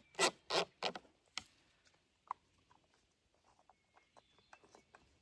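Clicks and knocks from handling a chainsaw while it is refuelled. A quick run of loud knocks and rattles in the first second and a half gives way to faint scattered clicks.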